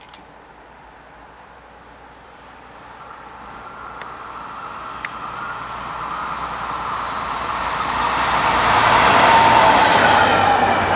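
Locomotive-hauled train approaching and passing close by. The running noise grows steadily louder and is loudest about nine seconds in as the locomotive goes past, with a whine that drops in pitch as it passes.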